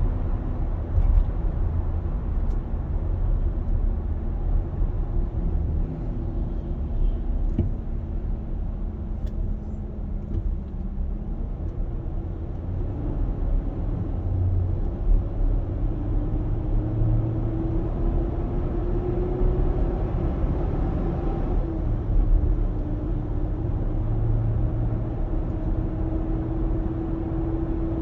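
2021 Nissan Armada's 5.6-litre V8 running with a steady low rumble, its engine tone slowly rising in pitch over several seconds and dropping back suddenly about three-quarters of the way through. The noise is what the owner calls loud engine noise.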